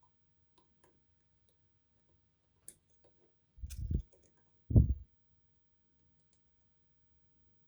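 Faint, scattered clicks of lock picks working the pins inside an Adamant spinning-key lock, with two dull thumps a little under four and about five seconds in.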